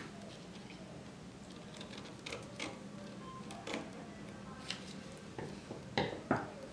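Scissors snipping through pattern paper laid on fabric: a run of separate short snips, with two louder clicks close together near the end.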